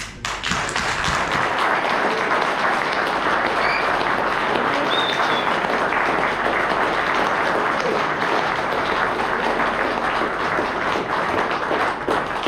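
Audience applauding: dense, loud clapping that starts abruptly and holds steady.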